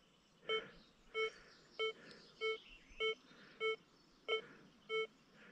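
XP Deus 2 metal detector in its dive program giving short, steady-pitched beeps, about nine of them, roughly one every 0.6 to 0.7 seconds. It sounds once on each pass of the coil, a two-way signal on a gold ring buried beneath a fridge magnet.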